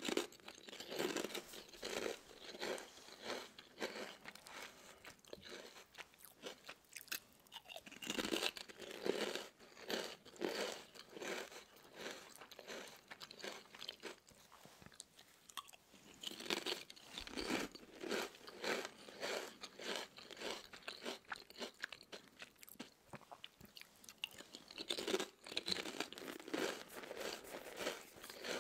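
Close-miked crunching and chewing of Lay's stackable potato-and-yam chips, in several bouts of rapid crunches with short lulls between.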